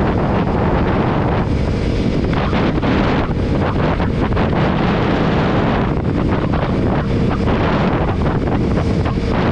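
Heavy, steady wind noise buffeting the microphone of a rider on a moving KTM Duke 125 motorcycle, drowning out nearly everything else.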